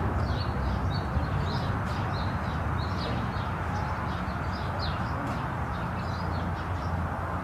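Small birds chirping rapidly and repeatedly in short high notes, some falling in pitch, over a steady low rumble of background noise.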